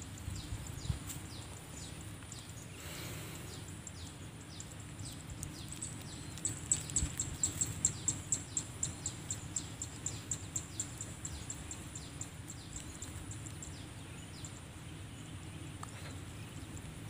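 Outdoor ambience with a steady high-pitched insect drone and a run of rapid high chirps, about four a second, through the middle stretch.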